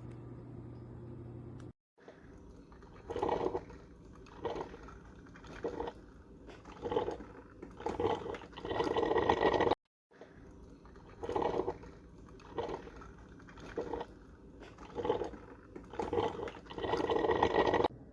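Elite Gourmet EC923 electric coffee percolator perking: irregular gurgling spurts of boiling water forced up the stem, coming closer together and building into a longer gush. The same stretch of perking is heard twice, each time after a brief cut.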